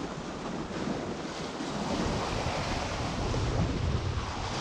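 Wind buffeting the microphone over the wash of waves on a rocky shore, swelling a little about two seconds in.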